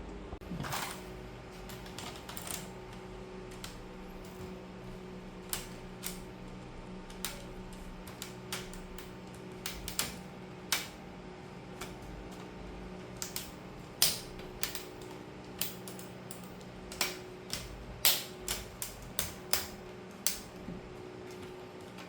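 Sharp, irregular clicks and snaps of plastic laptop cover parts being pressed and clipped into place, more frequent in the second half, over a low steady hum.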